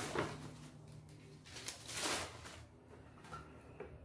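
Paper shopping bag rustling as a cardboard gift box is lifted out of it, in a few short rustles.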